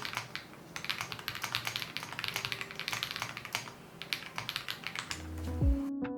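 Typing on an Ikki68 Aurora R2 mechanical keyboard with a polycarbonate plate and lubed Akko Radiant Red switches: a fast run of keystroke clacks with a short pause just under a second in. Electronic music comes in near the end as the typing stops.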